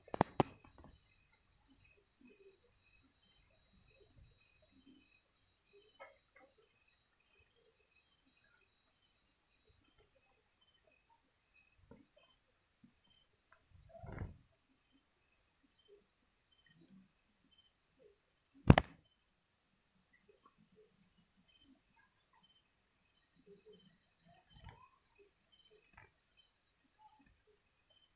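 Steady high-pitched trill of night insects, unbroken throughout. A single sharp click cuts through about two-thirds of the way in.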